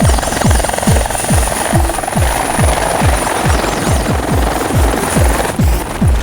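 Electronic dance music with a fast, steady kick drum, about two and a half beats a second, each beat dropping in pitch, over a continuous noisy background.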